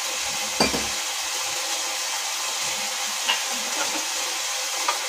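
Steady sizzling hiss of a masala frying in a pan, with a few brief faint knocks.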